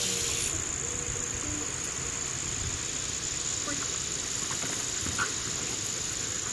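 Steady, high-pitched insect chorus holding one shrill continuous tone, with a louder, wider buzz that cuts off about half a second in. A single short knock sounds once past the middle.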